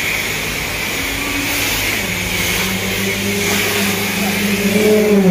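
High-pressure water spray from a self-serve car wash wand hissing steadily against a car's windows. About two seconds in a steady motor hum joins it, which drops sharply in pitch near the end.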